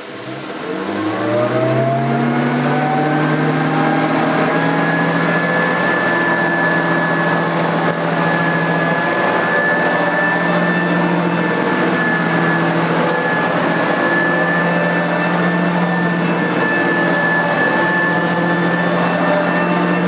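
Nilco 271 commercial upright vacuum cleaner winding up to full speed after switch-on: its whine climbs over the first couple of seconds, then runs steady and high. The agitator carries four extra brushes, eight in all, which give it a different sound.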